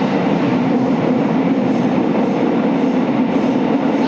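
JR 205 series electric commuter train running at steady speed through a tunnel: a continuous loud rumble of wheels on rail and traction motors, echoing off the tunnel walls.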